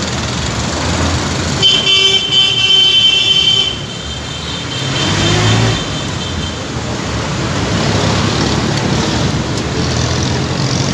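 Street traffic at an intersection: a vehicle horn is held for about two seconds, then a nearby engine speeds up with a rising note as traffic moves off, over steady engine and tyre noise.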